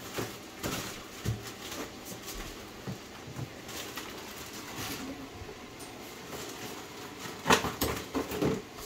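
Rummaging in an open refrigerator: light knocks and clinks of containers being moved on the shelves, with a cluster of louder knocks near the end.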